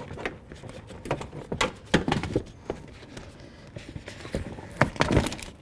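Plastic door insulation sheet being peeled back off its sticky factory sealer: irregular crackling and tearing clicks, busiest about two seconds in and again near the end.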